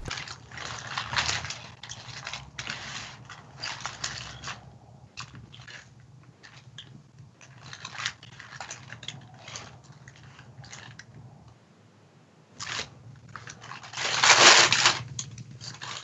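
A long kitchen knife crunching and scraping as it is forced into the hard, spiky husk of a whole Monthong durian, in irregular cracks and scrapes, with a louder noisy burst about fourteen seconds in.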